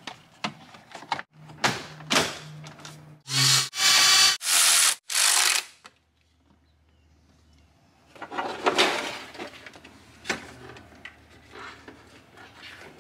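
Plastic dash trim clicking and knocking as it is pressed into place. A cordless ratchet then runs in three short bursts about three to six seconds in, driving in dash screws. Rustling and knocking of trim being handled follow after a short pause.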